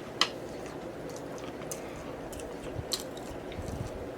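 Close-miked chewing of a BBQ rib sandwich: wet, squishy mouth sounds with scattered small clicks, and a sharper click just after the start.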